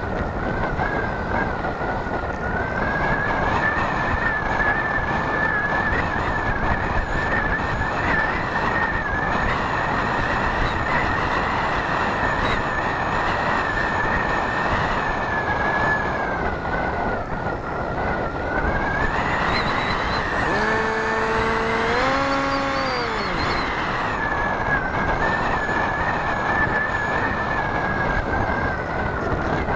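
Rushing airflow and a steady high whistle, picked up by a small camera mounted on an RC model plane in flight. About 21 seconds in, a pitched hum briefly rises, holds and then falls away.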